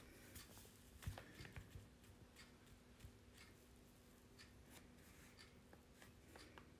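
Near silence: room tone with a faint steady hum and scattered small clicks and taps, a few a little louder about a second in.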